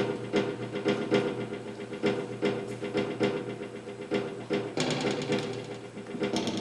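Machine-like performance soundtrack: irregular sharp clicks and knocks, a few a second, over steady low humming tones.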